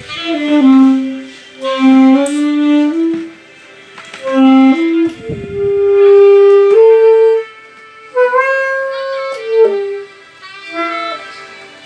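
Saxophone playing a melody in short phrases separated by brief pauses, with a long held note around the middle.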